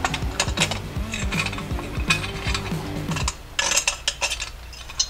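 Metallic clinks and scrapes of a stainless steel exhaust pipe being worked into place against a motorcycle engine, over background music that cuts off suddenly about three seconds in.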